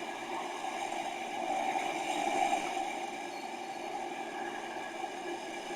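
Steady rushing outdoor background noise, swelling slightly about two seconds in.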